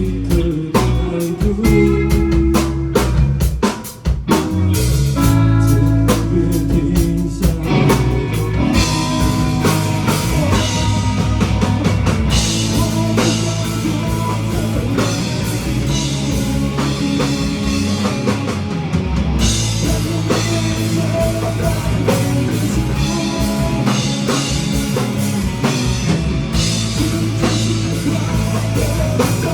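Live rock band playing: drum kit, electric guitar and bass. It opens with stop-start hits and a short break about four seconds in, and the full band comes in about eight seconds in.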